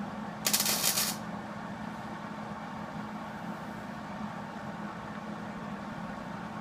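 Hobart 135 MIG welder laying a short tack weld: a burst of arc crackle about half a second in, lasting under a second. A steady low hum follows.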